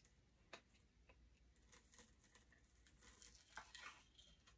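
Near silence with a few faint clicks and crinkles: a plastic screw lid being twisted off a powder tub and its foil seal starting to be peeled back.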